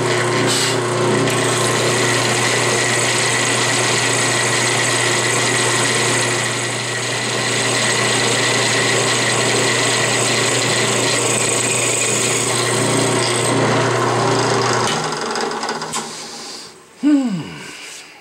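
Drill press motor running steadily while a twist drill bores an oil hole into a cast-iron lathe saddle. The motor is switched off about 15 seconds in and winds down, and a brief sound sliding down in pitch follows near the end.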